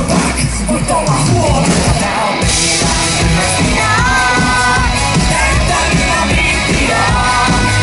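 Live band playing loud amplified music over a PA, with a steady pounding bass beat and singing.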